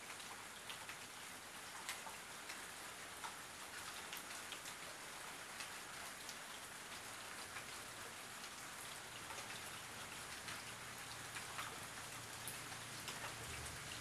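Steady rain on a roof, a continuous hiss with many individual drops ticking through it.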